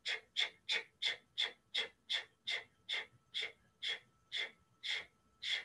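Breath of Fire: short, forceful rhythmic breaths, about three a second at first and gradually slowing to about two a second, as the rapid breathing is brought down toward a normal pace.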